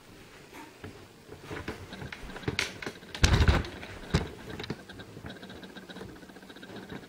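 Camera handling noise: a run of small clicks and knocks, with one loud thump about three seconds in as the camera is jostled.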